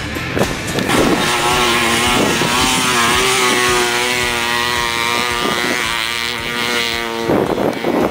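Dirt bike engine held at high revs under full throttle, its pitch wavering slightly, then cutting off abruptly about seven seconds in.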